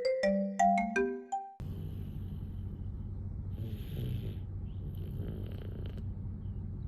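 A short jingle of bright struck notes climbing in pitch cuts off about a second and a half in. Then a toddler snores in his sleep over a steady low hum: one snoring breath about halfway through, and a rattly one near the end.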